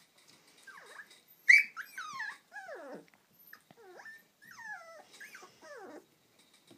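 Puppies crying in a run of high whines and yelps, each sliding down in pitch. The sharpest, loudest yelp comes about a second and a half in.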